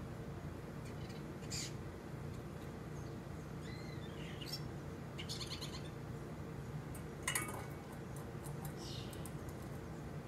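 Starlings giving scattered short chirps and whistles, with a sharper, louder call about seven seconds in, over a steady low hum.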